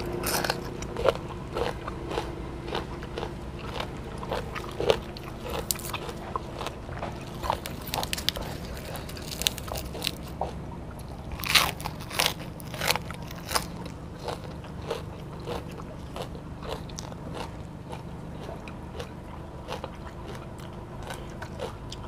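Close-up mouth chewing of crunchy food, jellyfish and raw vegetables, with many short crunches and crackles between the teeth. A few louder bites come about halfway through.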